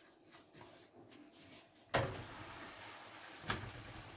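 A round of mkhamar dough set down in a hot frying pan: a soft thud about two seconds in, then a steady faint hiss as it starts to cook.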